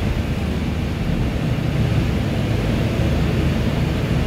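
Mercedes-Benz Citaro O530G articulated bus under way, heard from inside the cabin: a steady low rumble of the diesel engine and road noise.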